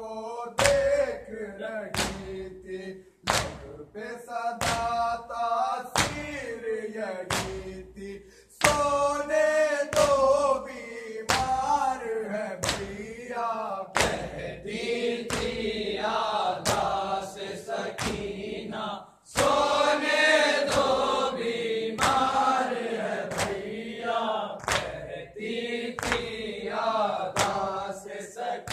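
Male voices chanting an Urdu noha (Shia lament) together, carried over regular sharp strikes of hands beating on chests (matam), a little more than one a second.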